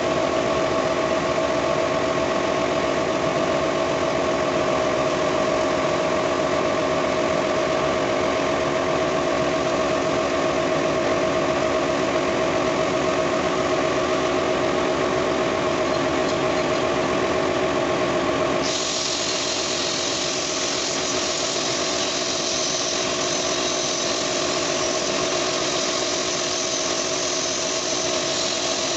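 A machine running steadily with a constant hum. About two-thirds of the way through, a high hiss suddenly gets louder and keeps going.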